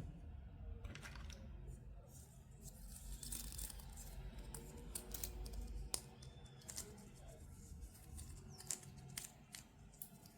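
Toy packaging being opened by hand: soft tearing and crinkling of plastic and cardboard with scattered light clicks and taps, a sharper click about six seconds in.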